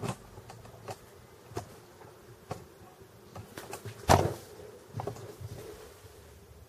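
Handling noise: a series of sharp knocks and taps, the loudest about four seconds in, over a faint steady buzz.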